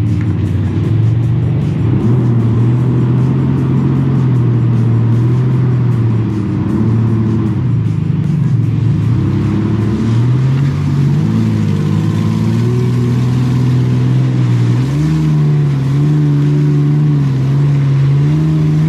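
1997 Toyota Land Cruiser FZJ80's 4.5-litre straight-six engine revving hard, its pitch climbing and dropping again and again as the truck on 37-inch mud tires tries to push through deep mud.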